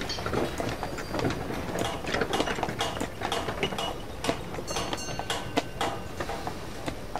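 Old railway train sound: wagons rattling and clanking with irregular knocks, and a few brief high squeals.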